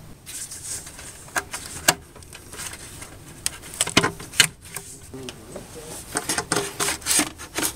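Irregular clicks, taps and rustles of hands working the rubber hoses, plastic clips and intake runners of a car's intake manifold, with about ten sharp knocks spread unevenly.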